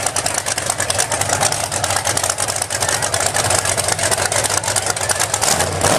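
Mud-covered pickup truck's engine running steadily in a mud bog pit, a low hum under a constant crackling hiss.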